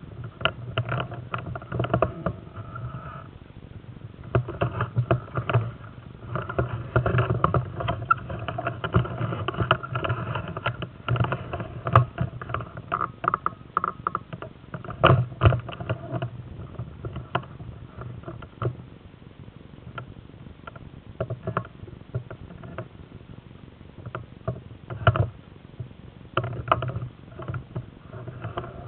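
Uneven crackling rustle and handling noise on the camera microphone, with a few louder knocks about twelve, fifteen and twenty-five seconds in.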